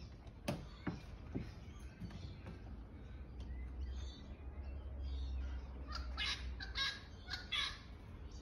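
A crow cawing several times near the end, over a low rumble of wind on the microphone. Three short thumps come in the first second and a half.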